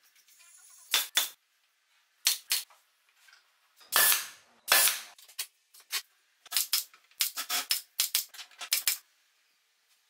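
Pneumatic nail gun firing nails into wooden slats, a sharp crack with each shot. There are a few spaced pairs at first, then a quick run of shots in the second half.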